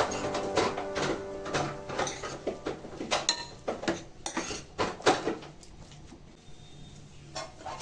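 A cooking spoon scraping and knocking against a pan as spiced potato stuffing is stirred, in quick irregular strokes that thin out after about five seconds.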